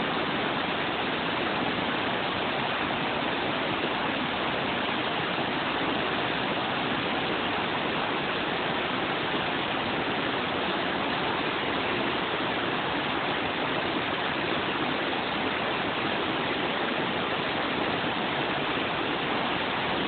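A river running high: floodwater pouring over a low concrete weir and through whitewater rapids, making a steady, even rush.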